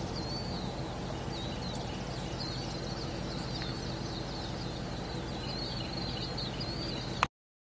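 Outdoor ambience: birds singing in many short, high, warbling chirps over a steady low hum. It cuts off abruptly with a click near the end.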